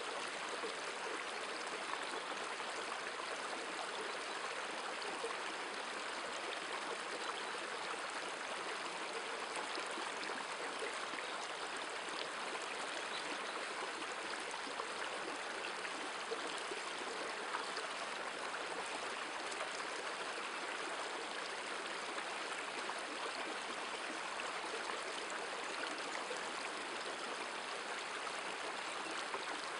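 Shallow river running over stones in a riffle: a steady rushing of flowing water that does not change.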